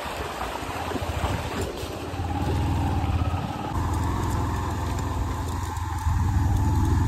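Motorcycle engine running under throttle at a small stream crossing. Its rumble steps louder about two seconds in and again about six seconds in.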